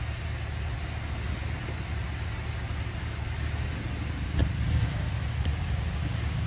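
Steady low outdoor rumble with a faint high steady hum above it, and a couple of light ticks a little after the middle.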